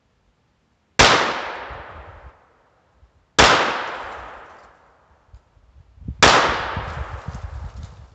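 Three shots from a Browning Buck Mark .22 LR pistol, about two and a half seconds apart. Each is a sharp crack followed by a long fading echo.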